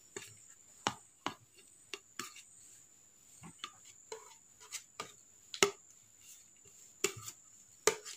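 Light, irregular clicks and taps of a plastic plate knocking on the rim of a steel container, with fingers scraping, as grated coconut is pushed off the plate into it; two sharper knocks come about halfway through and near the end.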